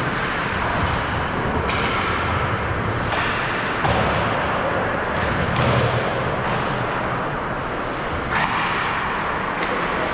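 Ice hockey play: skate blades scraping on the ice under a steady rink noise, with several sharp knocks of sticks and puck and thuds against the boards.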